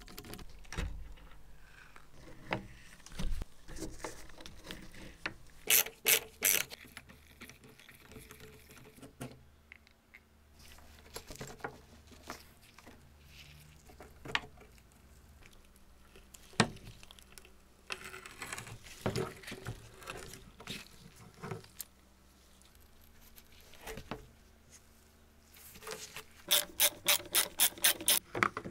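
Rusty screws being driven out of cast-iron brackets on an old wooden board: scraping and rubbing of metal on wood, with scattered sharp knocks, three close together about six seconds in. Near the end comes a quick run of about ten evenly spaced clicks.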